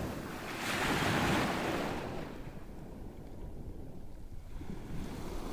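Sea waves breaking and washing in: one surge of surf peaks about a second in and then fades away.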